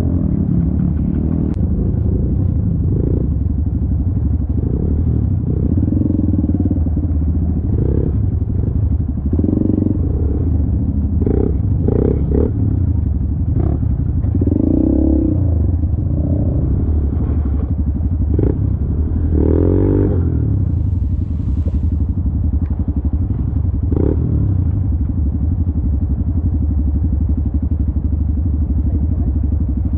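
Trail dirt bike engine running at low speed in low gear, its note swelling and dropping now and then, with frequent knocks and clatters as the bike bumps over rocks and mud.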